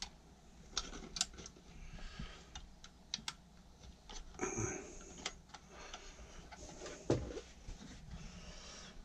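Scattered small clicks and taps of a screwdriver and fingers working on the plastic backplate of a programmable room thermostat while it is being wired, with a couple of duller knocks among them.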